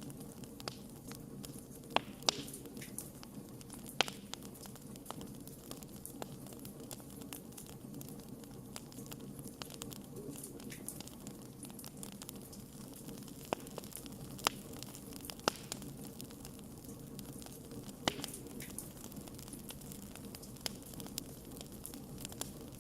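Wood logs burning in a fireplace: a steady low rush of flame with irregular sharp crackles and pops, a few louder pops standing out here and there.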